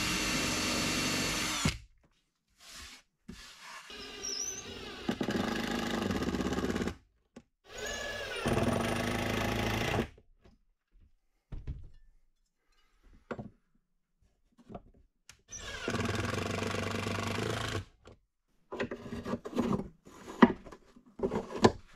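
Ryobi cordless drill motor driving screws into wood in four runs of about two to three seconds each, with gaps between them. Near the end come a few short knocks and clicks.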